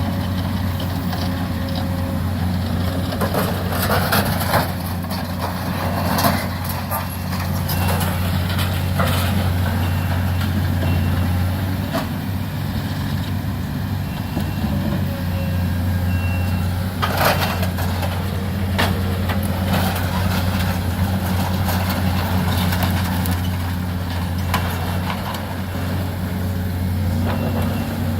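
Diesel excavator engine running steadily during demolition of a burned building, with scattered clanks and crashes of debris being pulled down and dropped.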